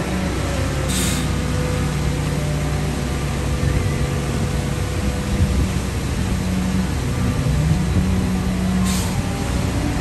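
Heavy diesel construction machinery running steadily, with two short hisses of air, one about a second in and one near the end.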